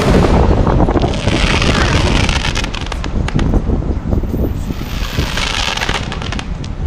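Fireworks display: aerial shells bursting, with a loud bang right at the start followed by dense crackling and popping.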